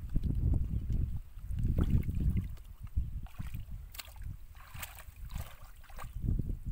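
Hands sloshing and squelching through shallow muddy water while feeling for fish in the mud, with low rumbling stretches at the start and near the end and a few small splashes in between.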